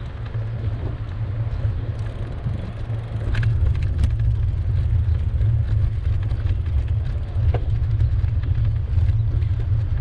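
Low, gusting wind rumble on the microphone of a moving bicycle-mounted camera, with faint street noise and a few small clicks over it.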